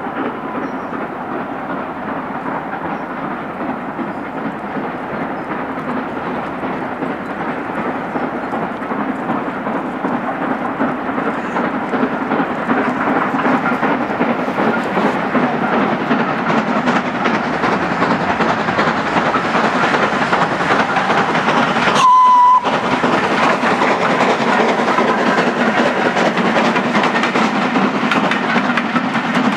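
Steam locomotive hauling a train of coaches as it approaches, a steady rumble of exhaust and wheels growing louder. One short whistle blast sounds about three-quarters of the way through.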